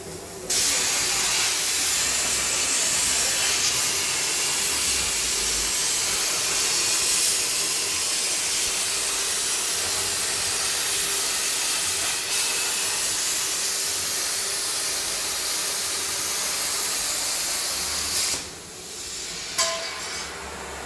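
Plasma cutting torch of a portable CNC cutting machine running: a loud, steady hiss that starts suddenly about half a second in and cuts off abruptly near the end, followed by a short sharp sound.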